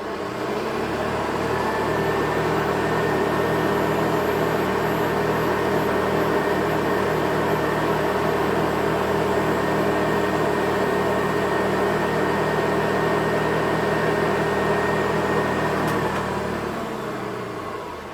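Vintage Hoover Ranger vacuum cleaner motor running with a steady hum and whine, building up to speed over the first couple of seconds. It is switched off near the end and winds down.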